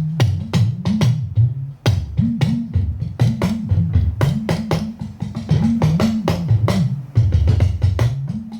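Talking drum played in quick strokes, its low tone bending up and down in pitch from stroke to stroke, with a short break just before two seconds in and a stretch held at a lower pitch near the end.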